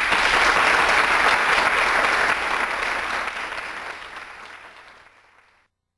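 Audience applauding, loud at first and then fading away until it cuts off near the end.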